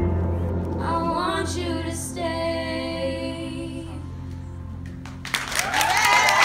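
Female voices sing the closing notes of a song over a held accompaniment chord that slowly fades. About five seconds in, audience applause and cheering break out and grow loud.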